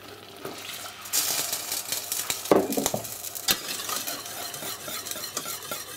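Wine poured into a simmering light roux sauce in a stainless steel pot, which hisses from about a second in, then a wire whisk stirring the sauce, clicking and scraping against the pot. There are a few sharper knocks against the pot partway through.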